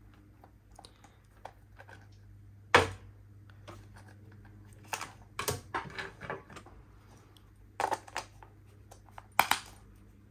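Small remote-control batteries being handled and fitted into the plastic battery compartment of an electronic pop-it toy: irregular clicks and taps of batteries against plastic, the sharpest about three seconds in and a few more in clusters later.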